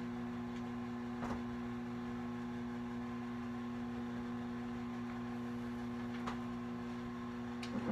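Steady electrical hum, a low buzz with several overtones, with a few faint clicks and knocks.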